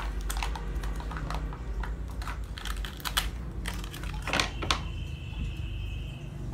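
Small plastic toy parts and a plastic tub clicking and tapping as they are handled on a tabletop, with a cluster of louder clicks about four and a half seconds in. A thin steady high tone sounds over the last second and a half.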